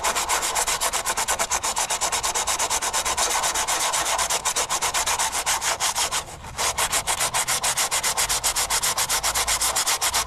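80-grit sandpaper disc rubbed by hand over a fibreglass bumper's gel coat in quick, even back-and-forth strokes, knocking down a rough high spot. There is a brief pause about six seconds in.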